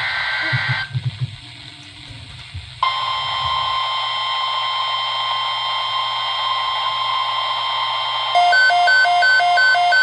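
NOAA Weather Radio alert played through a weather radio receiver: a burst of the SAME digital header's screech in the first second, then the steady 1050 Hz warning alarm tone comes on about three seconds in over a hiss of static. Near the end a rapid beeping that alternates between two pitches starts up over the tone.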